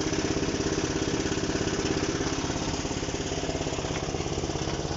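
Large excavator's diesel engine running steadily at an even pace, with a fast regular pulse and no change in revs while the machine is maneuvered during loading.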